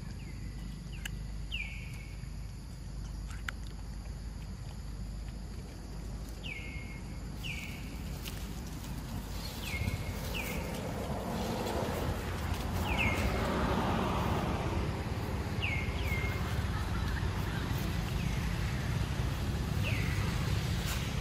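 Outdoor ambience: a steady low rumble with short, high calls that drop sharply in pitch and then level off. The calls come every few seconds, often in pairs.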